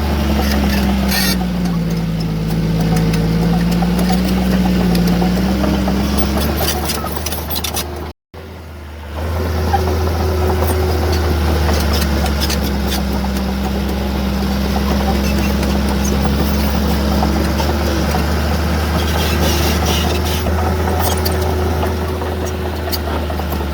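Diesel engine of heavy earthmoving machinery running under changing load, its pitch sagging and rising again, with scattered sharp clicks. The sound cuts out briefly about eight seconds in.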